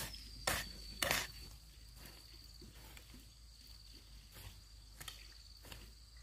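A hoe blade chopping into dirt: two loud strikes about half a second and a second in, then lighter, irregular strikes. Through it, a steady high-pitched insect trill.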